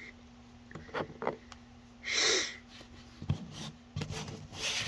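Trading cards and foil booster packs being handled on a table: a few light taps, then rubbing and swishing as cards are slid and shuffled, loudest about two seconds in and again near the end.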